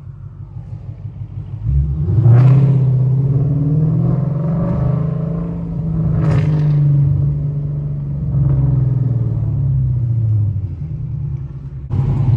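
Car engine revving and accelerating hard, heard from inside the cabin. It rises sharply about two seconds in, then swells and eases several times, with two sharp snaps about two and six seconds in.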